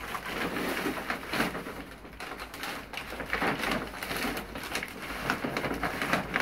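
Newspaper and a plastic fertilizer sack crinkling and rustling in irregular bursts as hands work the paper in around green onion stalks and push them down into the sack.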